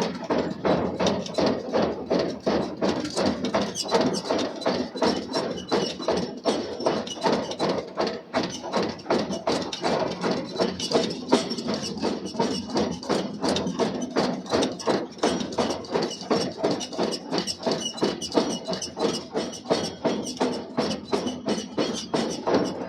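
Forging hammer striking steel billets in rapid, regular blows, about three a second.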